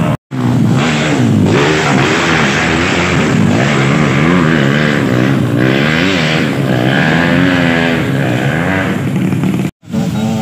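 Dirt bike engines revving hard and unevenly on a muddy climb, their pitch rising and falling again and again, with more than one bike running at once. The sound cuts out briefly twice, near the start and near the end.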